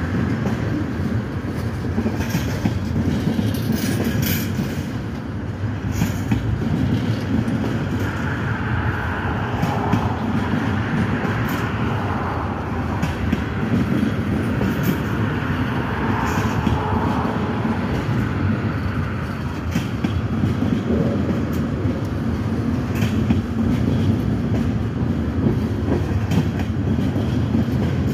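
Freight train of tank cars rolling steadily past close by, a continuous rumble with irregular knocks as the wheels cross the rail joints.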